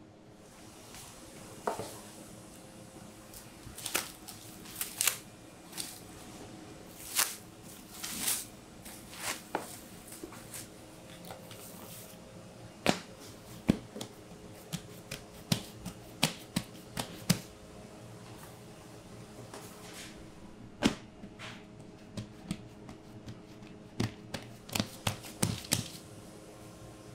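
Scattered sharp clicks, knocks and crinkles of sheet pans and plastic wrap being handled and dough being worked by hand on a worktable, over a steady low hum.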